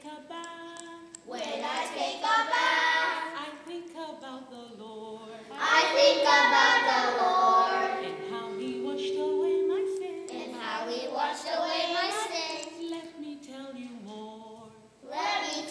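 Young children singing a song together into a handheld microphone, with a long held note about halfway through.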